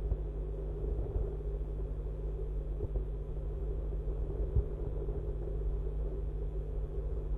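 Steady low rumble with a constant hum, typical of a rooftop webcam's microphone, broken by a few soft knocks, the clearest about four and a half seconds in.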